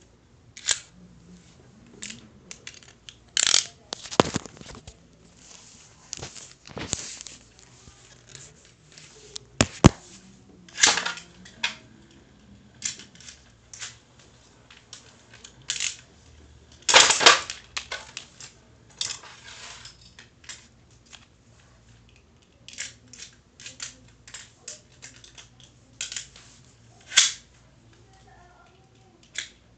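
Irregular clicks, snaps and short scrapes of small plastic and metal spinning-top parts being handled and fitted together, with a few louder snaps: knock-off Beyblade tops being assembled.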